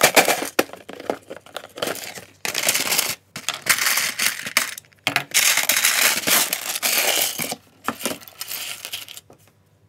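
Small hard plastic toy parts clattering and rattling against a plastic storage box as it is handled and tipped out, in several bursts with short pauses between.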